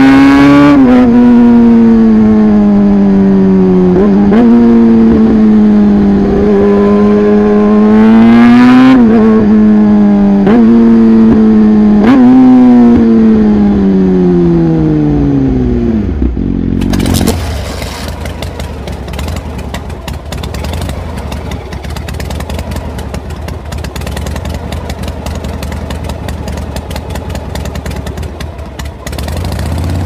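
Yamaha R6 motorcycle engine heard on board, running at steady high revs with short throttle blips about 4, 9, 10 and 12 seconds in. The revs then fall away as the bike slows. About 17 seconds in the sound drops abruptly to a quieter low engine rumble with rattling and wind noise.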